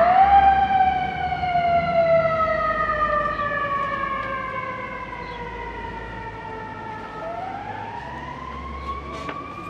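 Emergency vehicle siren wailing. Its pitch rises quickly at the start, falls slowly over several seconds, then climbs again near the end. It is loudest at first and fades as it goes.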